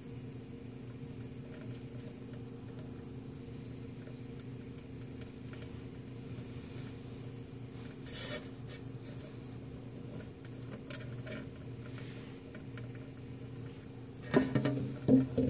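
Steady low hum in the room, with a short scrape about halfway through as a finger touches the clear plastic container. Near the end come several loud knocks and rubbing: handling noise as the phone or container is moved.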